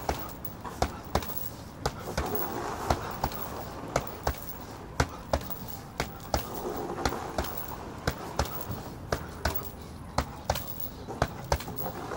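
Boxing gloves punching a hanging heavy bag, sharp thuds coming in quick uneven combinations of a few a second.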